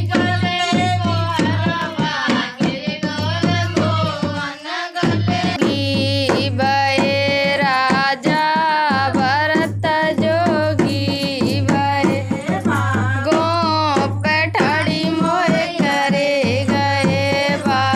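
Indian folk song with a voice singing a wavering melody over dholak drumming and a steady low bass; the drum and bass drop out briefly about five seconds in.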